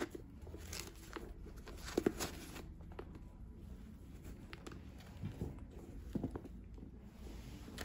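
Soft handling noises as a pair of patent leather Air Jordan 1 High OG sneakers and their laces are moved about and set down on a cloth-covered table. A few light taps and knocks, the sharpest about two seconds in.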